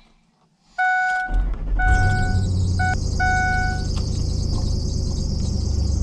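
Pickup truck engine starting about a second in and settling into a steady idle, while the dashboard warning chime beeps several times. A steady hiss runs over the idle.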